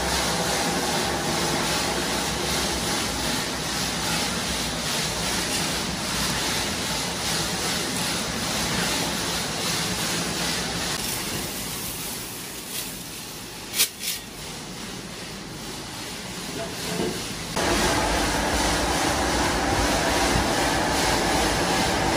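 Steel screws churning in a belt-driven spinning drum: a steady rushing rattle over a low motor rumble. It eases off for several seconds midway, with one sharp metallic clink, then comes back at full loudness.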